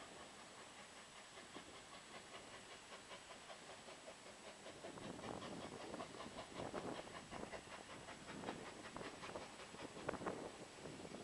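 Steam locomotive No. 4, an ex-NCC class WT 2-6-4 tank engine, chuffing faintly in the distance as it approaches: a quick, even beat of exhaust puffs that grows louder from about five seconds in.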